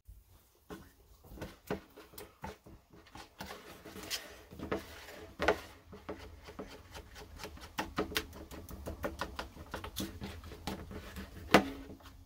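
A fork stirring barbecue sauce in a bowl: a run of irregular clicks and scrapes of the fork against the bowl that grows busier after a few seconds, with one sharper clink near the end. A low steady hum sits underneath.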